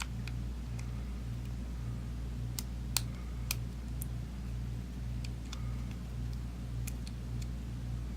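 Scattered small sharp clicks of tools and parts being handled while a phone camera module is fitted into an opened smartphone. The two loudest clicks come about three seconds in. Under them runs a steady low hum that pulses about twice a second.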